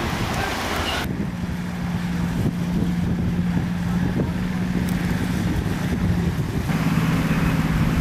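A steady low motor hum mixed with outdoor wind noise. The sound changes abruptly about a second in and again near the end, where the hum drops slightly in pitch and more noise comes in.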